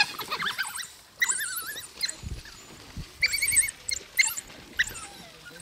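African wild dogs twittering: high-pitched, warbling squeaks in several quick bursts, the chatter of a pack jostling over food.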